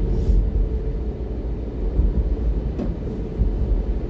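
Car cabin road noise while driving on snowy roads: a steady low rumble. The windshield wipers sweep faintly twice, near the start and about three seconds later.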